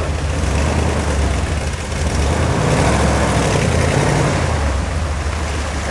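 Engine of a 4x4 Toyota Land Cruiser 70-series working through deep mud at low speed. It runs steadily, its revs pick up a little over the middle of the stretch and ease again near the end.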